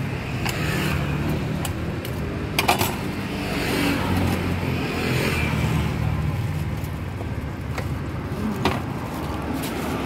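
Street traffic with a motor vehicle engine running steadily nearby, a low drone, broken by a few sharp clicks, the loudest about two and a half seconds in.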